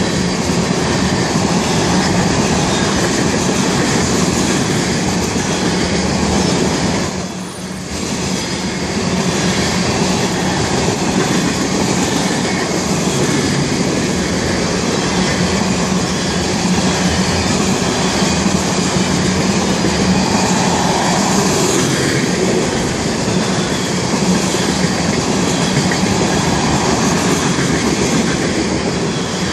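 Freight train of tank cars rolling past close by: a steady loud rumble and clatter of steel wheels on the rails, with a brief lull about seven seconds in.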